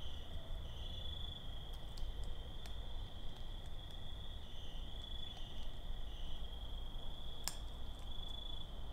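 Steady, high insect chorus of night-calling insects, wavering slightly, over a low rumble. A few sharp clicks break through, the strongest about seven and a half seconds in.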